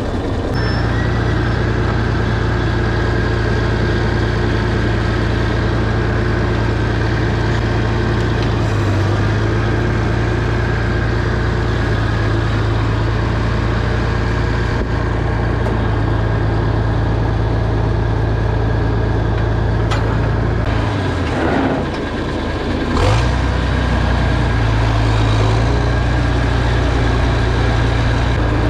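Tractor engine running steadily under load while mowing hay. Its note dips for a moment about two-thirds of the way through, then picks back up.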